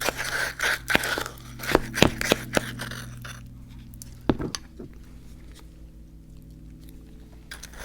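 Close-up crunching and chewing of crunchy Icee cookies: a quick run of crisp crunches in the first three seconds, then quieter with a couple of clicks about four seconds in.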